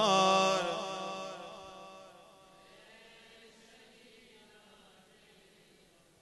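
Man chanting through a microphone, holding the last note of a line, which fades away with hall reverberation over about two seconds; then near silence.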